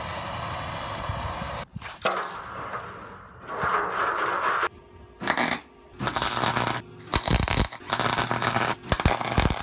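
A sequence of workshop sounds: a handheld blowtorch hissing steadily, then metal clinking in a tub of water, then a wire-feed welder crackling in several short bursts that start and stop abruptly.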